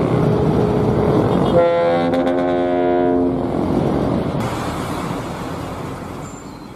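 Bus air horn sounding a chord of several tones for about a second and a half, over traffic and engine noise that fades away near the end.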